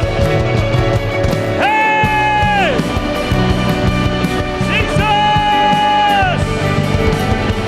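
Loud rock-style worship band music with a steady beat. Over it come two long held high notes, each bending down in pitch as it ends.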